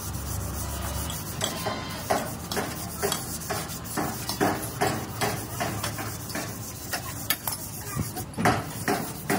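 Hand sanding of a UD Nissan truck cab's sheet-metal door: sandpaper or a sanding pad rubbed over the panel in quick back-and-forth strokes, about two a second.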